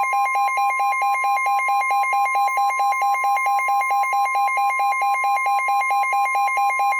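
Emergency Alert System attention tones: a steady high tone with a second, buzzy alarm tone pulsing about six times a second over it.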